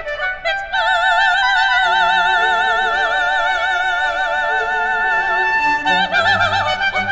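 Operatic soprano holding a long high note with wide vibrato for several seconds, then moving on through quicker notes, with orchestral accompaniment beneath.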